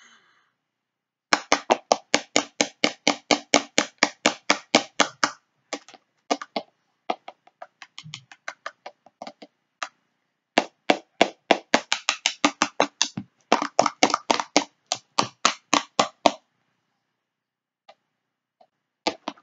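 Screwdriver jabbing over and over at a plastic bottle: fast sharp plastic taps, about five a second, in several runs with a sparser, quieter stretch in the middle.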